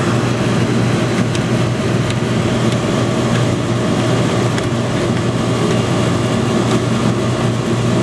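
A steady mechanical hum with a constant low drone, running evenly throughout, with a few faint clicks.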